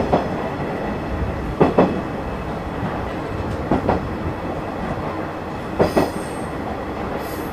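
Freight train hauled by a Green Cargo Rc4 electric locomotive rolling past: a steady rumble with paired wheel clacks over the rail joints about every two seconds.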